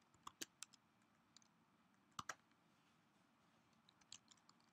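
Faint computer keyboard keystrokes: a few scattered key clicks with pauses between them.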